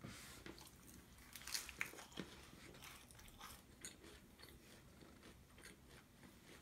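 Faint crunching and crackling of a crisp ciabatta crust, a run of small crackles with a couple of louder crunches about a second and a half in.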